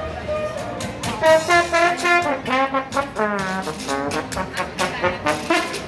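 Brass instruments, trombone and trumpet, playing a tune. The notes grow louder about a second in and slide up and down in pitch.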